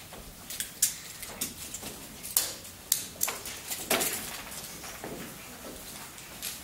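Irregular sharp knocks and footfalls on a hollow wooden stage floor as children move about and handle props.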